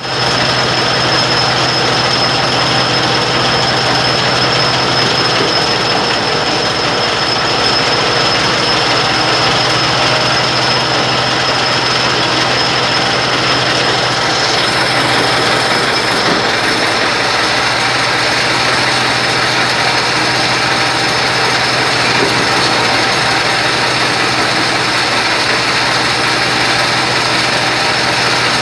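Mini stone crusher machine running: a loud, steady mechanical clatter with a constant low hum and a high whine.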